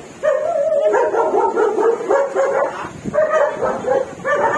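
A dog whining and howling: a run of high-pitched cries broken by short pauses.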